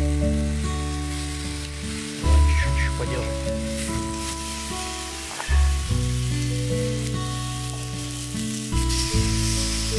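Pork ribs sizzling on a hot stone over a wood fire, under background music of slow held chords with a strong bass that change about every three seconds.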